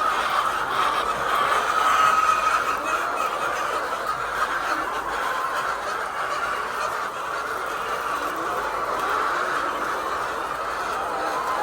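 A flock of laying hens in a poultry house clucking and squawking together, many birds at once making a steady, continuous din.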